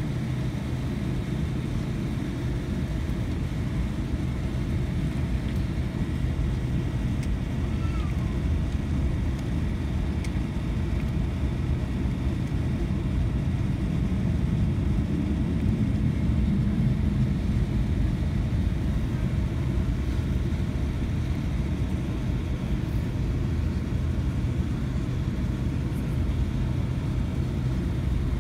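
Steady low rumble inside the cabin of a Boeing 787-10 airliner taxiing, its engines at taxi power and its wheels rolling on the taxiway, with a steady hum under it. The rumble swells slightly about halfway through.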